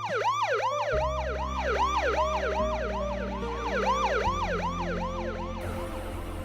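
Emergency vehicle siren on a fast yelp, its pitch sweeping up and down about three times a second. It fades out near the end.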